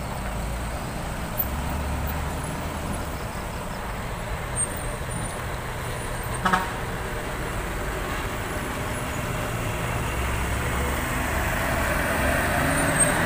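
Heavy diesel truck engines running under load: a steady low rumble that swells twice. A brief sharp sound comes about six and a half seconds in, and the noise grows louder near the end as a truck passes close by.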